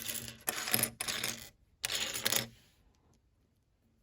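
Loose plastic Lego pieces clattering as a hand sifts through a pile, in four short bursts over the first two and a half seconds.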